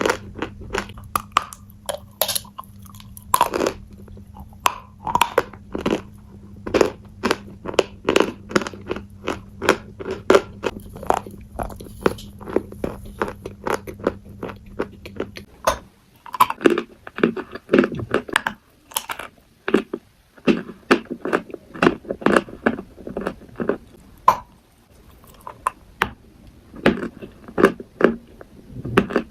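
Close-up chewing and biting of crunchy food: rapid, irregular crunches, several a second, with brief pauses between bites.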